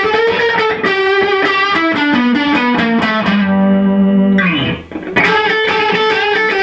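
Electric guitar lead from a Fender Stratocaster's single-coil pickups played through an all-tube amp, straight into the amp with no pedal in the signal path. Quick picked notes step downward to a long held note that slides down and breaks off about five seconds in, then fast picking starts again.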